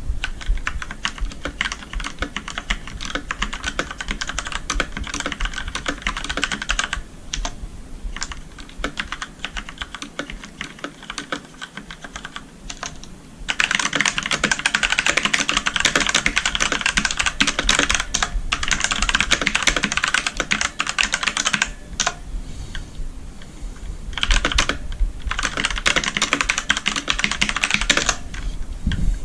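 Typing on a Redragon Ratri K595 mechanical keyboard with Outemu Black linear switches, a steady clatter of keystrokes. The typing is lighter and sparser for a few seconds near the middle, then comes in dense, fast, louder runs in the second half.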